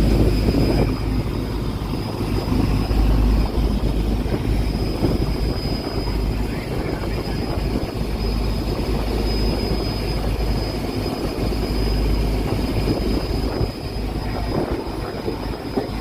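Fishing boat's engine running steadily at sea, with a wavering low rumble of wind on the microphone.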